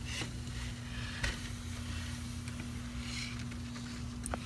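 Steady low background rumble with a faint, even hum, broken by a few soft clicks or rustles.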